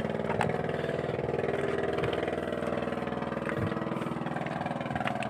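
Engine running steadily at a nearly even pitch, with a few faint knocks about every second and a half.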